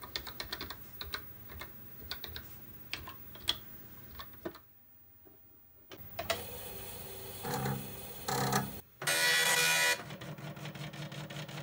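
Keys clicking as someone types on a TRS-80 Color Computer keyboard. After a short pause comes the running whir of a TRS-80 Mini Disk 5¼-inch floppy drive, with two brief louder bursts. A Tandy dot matrix printer then prints, loudly for about a second and then as a fast, even rattle.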